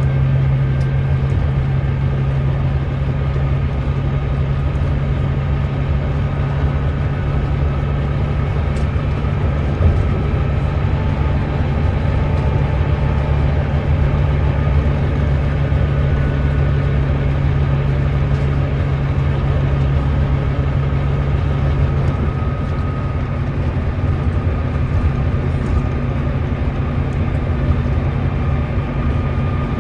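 Volvo B9TL bus's Volvo D9B 9.3-litre diesel engine running steadily with a low drone.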